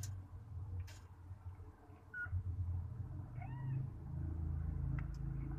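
Cat mewing during a birth: a brief high squeak a little after two seconds in, then one short meow that rises and falls about three and a half seconds in, over a low continuous rumble.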